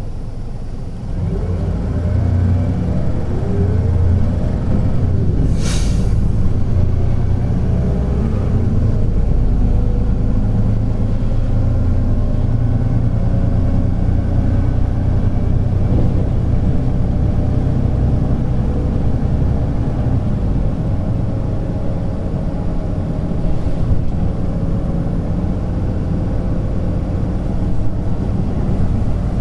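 Hino Blue Ribbon City low-floor bus's P11C inline-six diesel engine heard from inside the cabin, pulling away about a second in with its pitch rising, then running steadily under way. A brief hiss near six seconds in.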